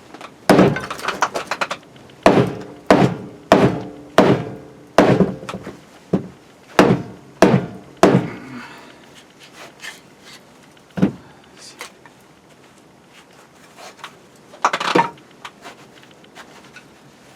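Firewood being split by hand: a quick run of about a dozen sharp chopping strikes on wood in the first eight seconds, then a few scattered knocks later.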